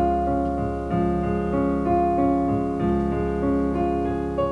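Keyboard playing the intro to a slow ballad: sustained chords, with notes changing about every half second.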